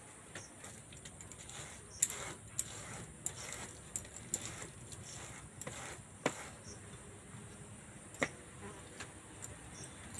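Ripe palmyra palm fruit being rubbed and scraped by hand against a woven bamboo basket to force the pulp through the weave: irregular scratchy strokes and sharp clicks.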